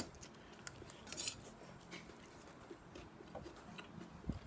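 Faint clicks and scrapes of a metal spoon against a metal plate as food is scooped up, with a short rasping scrape about a second in.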